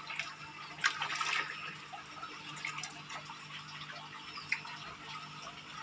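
Water splashing as small caught fish, mostly tilapia, are tipped into a fish pond, with a louder cluster of splashes about a second in and smaller ones after.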